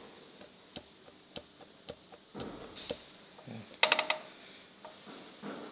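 Scattered light metallic clicks, then a short ringing clink of metal about four seconds in: metal parts of a disassembled engine being handled.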